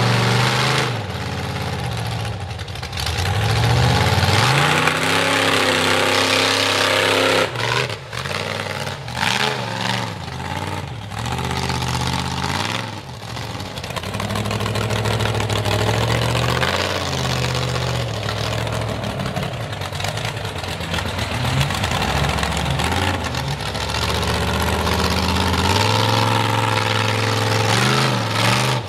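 Built V8 engine of a Dodge mega mud truck revving hard and easing off again and again while the truck works through deep mud. The engine pitch climbs and falls several times.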